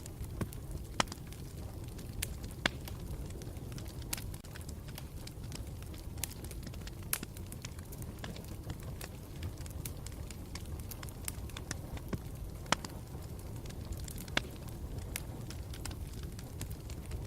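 Campfire burning with a steady low rumble and scattered sharp crackles and pops of burning wood, a few louder snaps among them.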